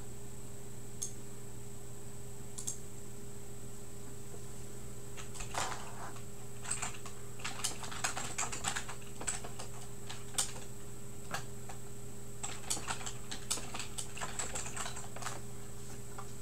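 Computer keyboard being typed on in two short runs of clicks, with a few single clicks before them, over a steady electrical hum.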